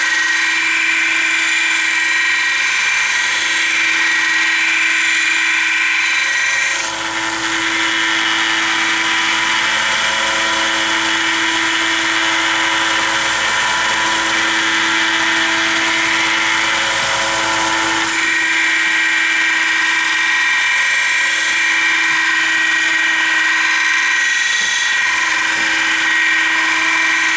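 Belt grinder running an 80 grit belt, grinding down the primary grind of a steel folding-knife blade: a steady motor whine with belt hiss. For about ten seconds in the middle the grinding turns rougher and noisier.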